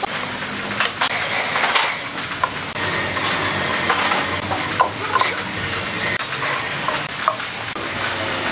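Cordless drill running in short spells as it drives screws through a steel hinge into the thin sheet metal of a drum, with sharp metallic clicks from the bit and screws.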